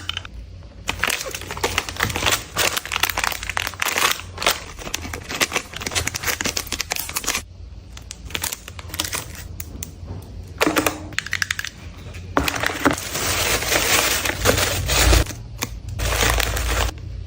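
Dense crackling and crunching of something being crushed, coming in stretches of a few seconds with short pauses between, loudest in the second half.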